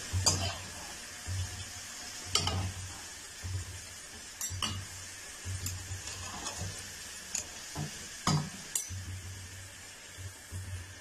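Potato pieces sizzling in hot oil in a metal karahi, while a wire spider strainer and a perforated metal skimmer scoop them out, clinking and scraping against the pan and each other about once a second.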